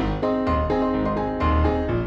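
Background music: a melody of quickly changing notes over a steady bass line.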